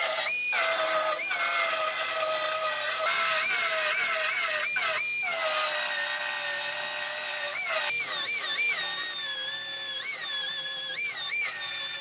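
Finger belt sander with a narrow belt grinding into the steel seam of a car's rear body panel as the panel is cut off. Its high whine dips and rises in pitch again and again as the belt is pressed in and eased off, over a steady grinding noise.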